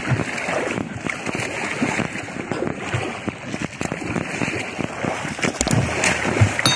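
Choppy sea waves slapping and splashing against a small outrigger boat's hull in an irregular, continuous churn.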